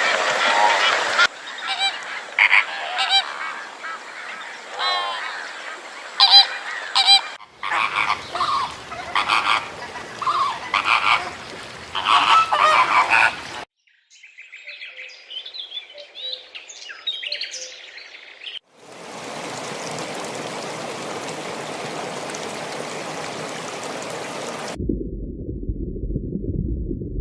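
A run of short clips of domestic waterfowl honking and calling loudly, cut one after another. Then come faint high chirps, an even hiss, and near the end a low rumble.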